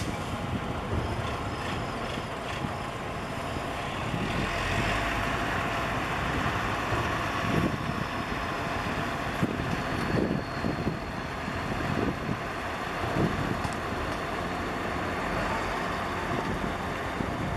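Road traffic passing near the microphone: a steady rumble and hiss with a few brief louder swells as vehicles go by.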